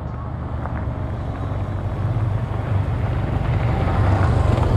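Two motorcycle engines running as the bikes ride up a rocky track toward the listener, growing steadily louder as they come close.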